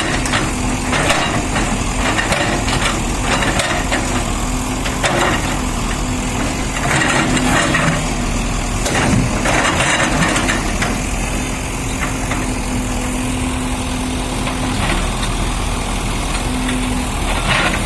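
Tata Hitachi excavator's diesel engine running steadily, with irregular knocks and crunches as its bucket strikes and breaks concrete.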